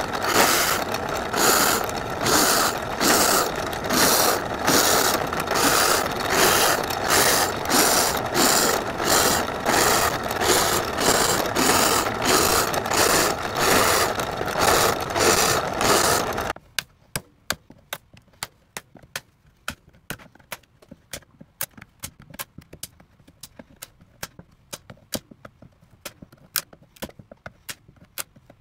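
Drill press cutting a series of holes into a hardwood board, a loud rhythmic pulsing cutting noise. It cuts off suddenly a little past halfway, leaving a run of faint sharp ticks.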